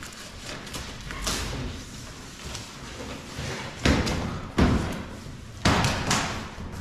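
A large cardboard shipping box being opened: a utility knife runs along the packing tape, then the stiff cardboard lid and flaps are pulled back with rustling and scraping, and three loud thumps as the panels hit and fold.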